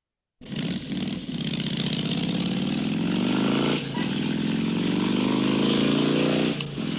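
Motorcycle engine revving through two long climbs in pitch, each rising for over two seconds before dropping off sharply, the second ending near the close.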